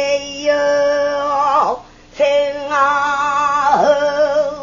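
A woman singing pansori, holding long notes with vibrato in two phrases, with a short break for breath about two seconds in.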